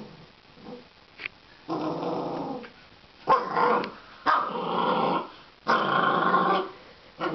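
Puppy play-growling in a run of long growls, four loud ones of up to about a second each starting about two seconds in, after a few quieter ones.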